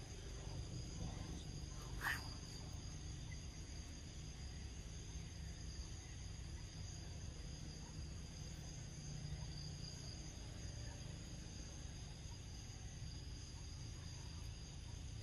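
A steady outdoor insect chorus: several high tones held evenly throughout over a low background rumble, with one brief click about two seconds in.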